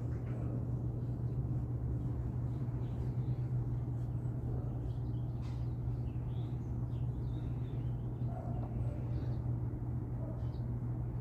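Outdoor ambience: a steady low mechanical hum, with short bird chirps now and then.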